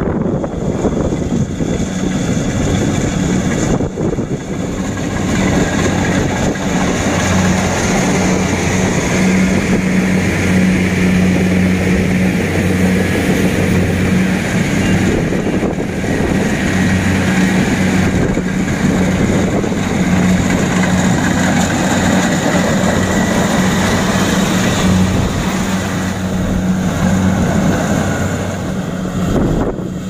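Kubota DC-70 Plus rice combine harvester cutting rice: its diesel engine runs at a steady pitch, a constant low hum under the rushing noise of the cutting and threshing machinery.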